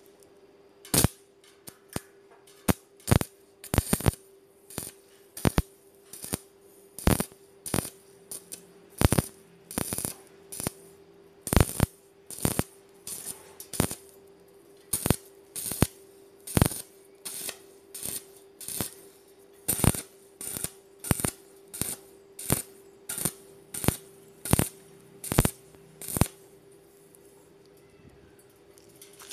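Stick arc welder tack-welding hollow square steel tube: a long series of short, sharp sizzling arc bursts, about one or two a second, over a steady low hum, stopping a few seconds before the end.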